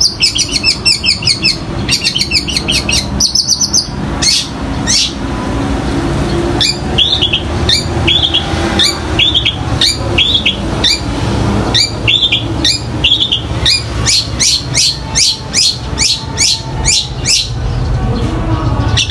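Long-tailed shrike (cendet) singing a varied mimicking song that imitates the fighting chatter of Eurasian tree sparrows. It opens with fast runs of high chattering notes, moves to spaced, hooked calls, and near the end gives a quick series of sharp notes.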